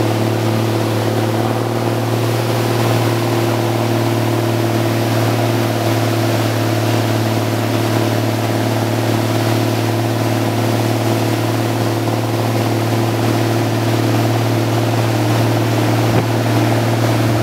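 An engine running at a steady speed, over the rush of fast-flowing floodwater.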